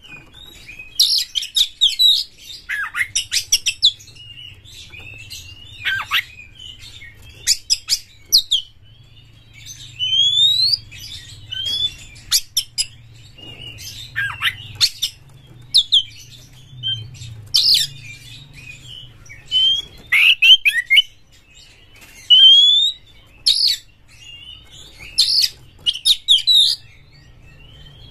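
Oriental magpie-robin singing in short bursts of varied whistles and chattering notes, some sliding upward, with brief pauses between phrases.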